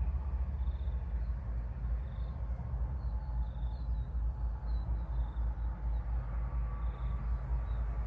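Outdoor ambience: a steady high-pitched insect drone with a few faint short chirps, over a continuous low rumble.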